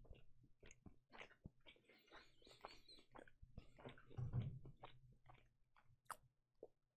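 A person chewing a mouthful of burger close to a microphone: faint, irregular wet mouth clicks and smacks, with a brief low sound about four seconds in.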